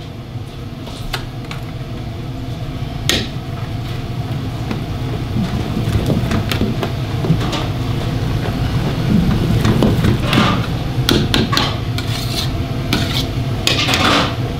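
A metal ladle stirs jajang black bean sauce and onions in a wok, scraping and knocking against the pan while the sauce sizzles. Louder scraping comes about ten seconds in and again near the end, over a steady low hum.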